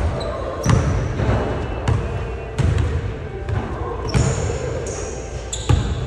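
Basketball bouncing on a hardwood gym floor, several dribbles at uneven intervals.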